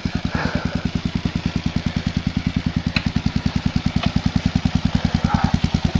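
Dual-sport dirt bike engine idling, a steady even beat of about a dozen pulses a second.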